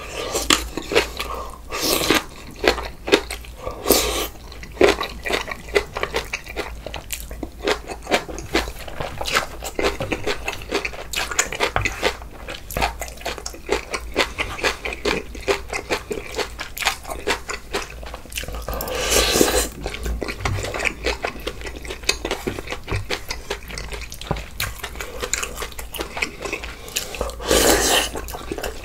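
Close-miked eating sounds of spicy bulgogi hotpot and kimchi: wet chewing, smacking and slurping, with small clicks of utensils on dishes. Louder, longer slurps come about 19 seconds in and near the end.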